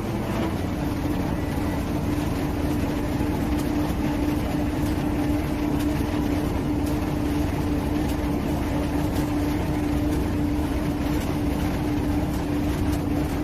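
Heavy diesel engine of a crane running steadily with an even hum while it lowers an excavator hanging on chains.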